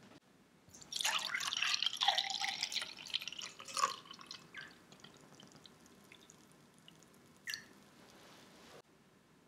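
Milk poured into a clear drinking glass: a splashing stream for about three seconds, then a few last drips, one more distinct near the end.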